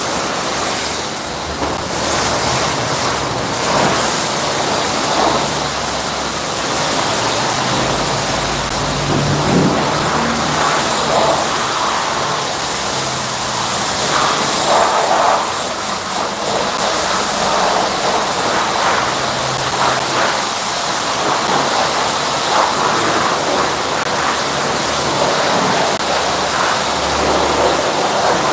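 High-pressure car wash wand spraying water over a soapy car, a steady rushing noise of the jet and spray striking the bodywork.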